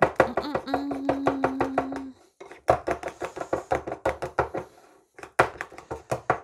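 A metal spoon beats thick, lumpy flour-and-water batter in a glass bowl, making a quick run of clicks against the glass at roughly eight strokes a second, with two short pauses. A steady low hum sounds for about a second near the start.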